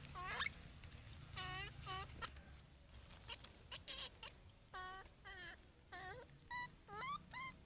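Baby macaque giving repeated short, high-pitched calls that dip and rise in pitch, in quick runs of two to four.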